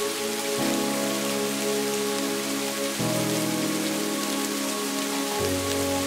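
Steady rain falling, heard as an even hiss. Under it is a soft sustained synthesizer chord that shifts to a new chord about every two and a half seconds.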